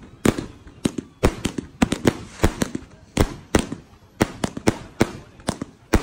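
Fireworks going off: a fast, uneven string of sharp bangs, about three a second, each with a short echoing tail.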